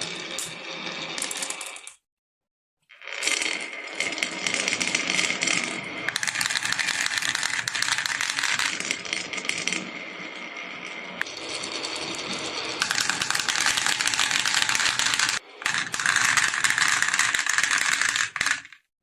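Marbles rolling and clattering down a marble run, a dense stream of clicks and rattles. It cuts off abruptly to silence about two seconds in for about a second, then resumes, with another short break near the end.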